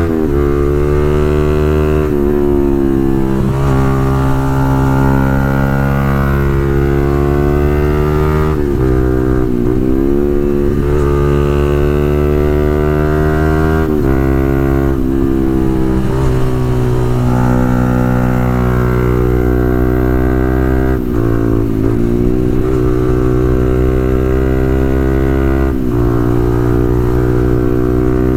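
Motorcycle engine running through an aftermarket Pro Liner full-system exhaust while riding. The exhaust note stays loud and steady, dipping and climbing back in pitch about five times, as with gear changes or throttle lifts.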